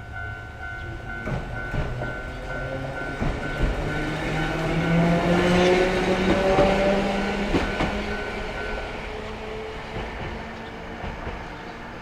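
Randen tram passing over a level crossing: its motor whine rises in pitch as it picks up speed, with wheels knocking over rail joints, loudest mid-way. The crossing's warning bell rings in steady pulses and stops about three-quarters of the way through.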